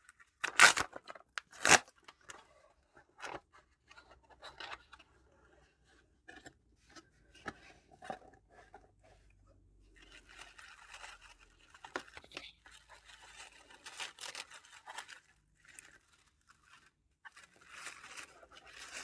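A cardboard box and its packaging being opened and unpacked by hand: two sharp tearing snaps near the start, scattered small clicks and scrapes, then longer stretches of paper or plastic packaging crinkling.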